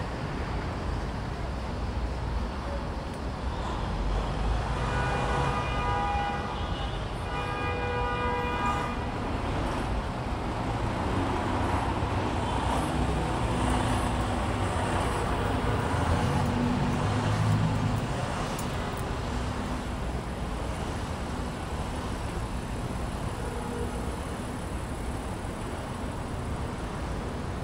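City street traffic: a steady noise of passing cars, with a car horn sounding twice, about five to nine seconds in. A heavier engine grows louder as it passes near the middle.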